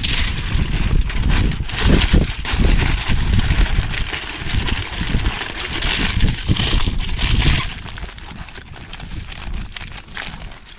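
Wind rumbling and buffeting on the microphone with rustling and handling noise over it, easing off about eight seconds in.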